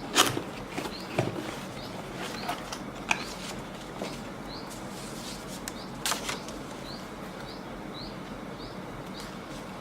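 Packaging of a shotgun microphone being handled and opened: rustling and scattered clicks, with a sharp knock right at the start and another about six seconds in.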